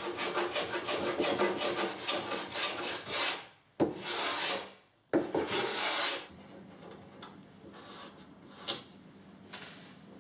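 Small block plane shaving the top edges of cello ribs on the mould: a quick run of short scraping strokes, then two longer, separate strokes about four and five seconds in. After about six seconds it goes much quieter, with only faint handling and a small click.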